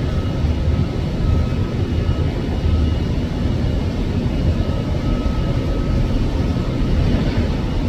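Steady, loud low rumbling noise with faint thin high tones running through it.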